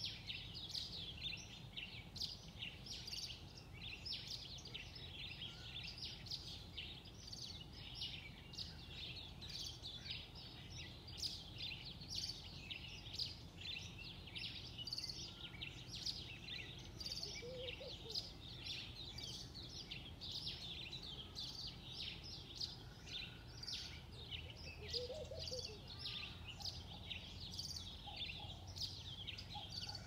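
Dawn chorus of many small birds chirping rapidly and without pause in the trees, over a steady low background rumble. A couple of brief, lower calls stand out about halfway through and again later.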